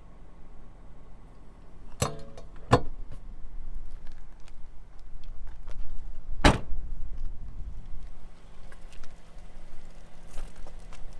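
Car body being handled: two sharp metallic clicks with a brief ring about two seconds in, then one heavy thump about six and a half seconds in, typical of a car door being shut.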